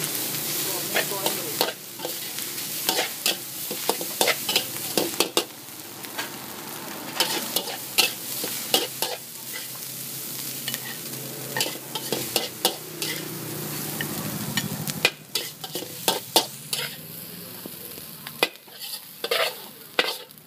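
Fried rice with egg, beef and vegetables sizzling in a large wok while a metal spatula stirs and tosses it, clacking and scraping against the wok many times. About fifteen seconds in the sizzle thins and the spatula scrapes across the nearly empty wok.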